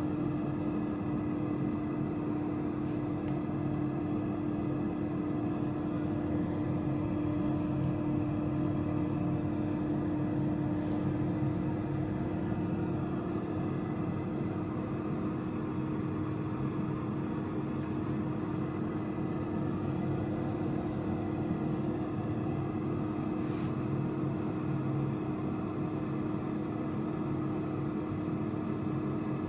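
Agaro air fryer oven running: its fan and heater hum steadily, a constant tone over an even whir.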